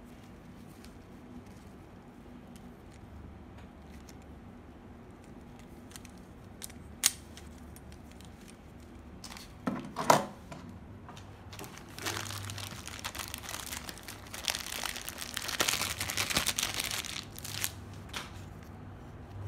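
Clear plastic packaging crinkling and rustling through the second half, while the Beyblade parts are handled. Before that come a sharp click about seven seconds in and a couple of loud knocks around ten seconds, the loudest sounds here.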